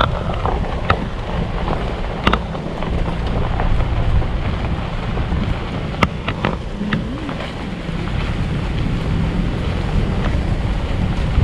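Wind buffeting the microphone: a steady low rumble, with a few sharp clicks scattered through it.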